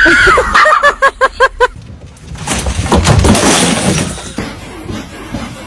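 A dog gives a long high cry, then a quick run of short yelping cries, about five a second. A couple of seconds later comes a noisy crash.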